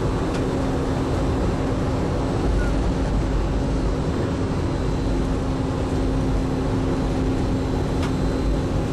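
Mark VII monorail running along its beam, heard from inside the cabin: a steady rumble with a constant hum.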